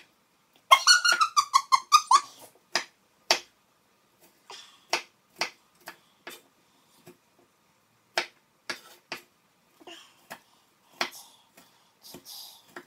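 Kitchen knife chopping vegetables on a chopping board: a string of short, sharp knocks at uneven spacing. Early on there is a loud, high-pitched whining call that falls in pitch in short steps for about a second and a half.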